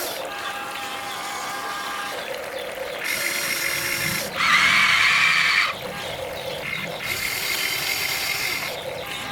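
Huina RC excavator's electric motors and gearboxes whining in stop-start bursts as the boom, arm and bucket move. The loudest, highest whine comes about halfway through and lasts just over a second.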